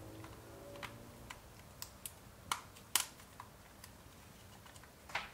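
Scattered light clicks and taps of plastic as a small plastic-housed dash cam is fitted onto its suction-cup mount, irregular and a few per second at most, with a sharper click past the middle and another near the end.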